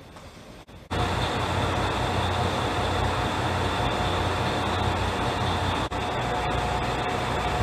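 Diesel railcar standing at a platform with its engine idling: a steady low drone with a thin, steady whine above it. It starts abruptly about a second in, after quieter station-hall background.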